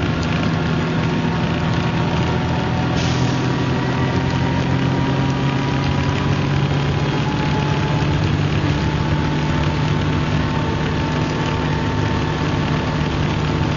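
The engine of an MCW Metrobus double-decker bus running at steady, even revs, a continuous drone with only a slight drift in pitch. A brief hiss comes about three seconds in.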